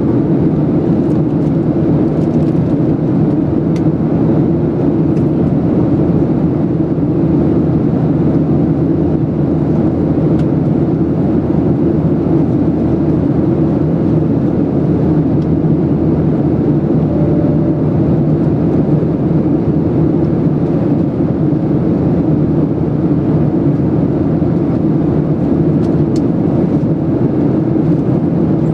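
Steady cabin drone of a Boeing 737-700 in climb: its CFM56-7B engines and the rushing airflow, heard inside the cabin from a seat over the wing.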